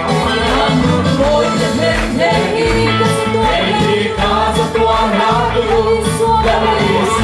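Gospel worship song: a group of voices singing together over a steady drum beat.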